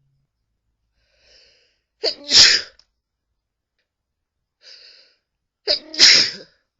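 A person sneezing twice, about three and a half seconds apart. Each sneeze is a faint intake of breath followed by a loud two-part burst.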